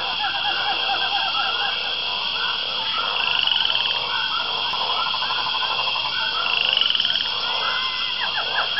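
Rainforest ambience: a dense chorus of frogs calling in short repeated chirps and a few rapid trills, over a steady high insect drone.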